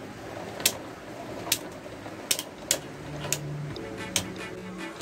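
Beyblade Burst spinning tops clashing in a plastic stadium: about six sharp plastic-and-metal clacks at irregular spacing over a low steady whir.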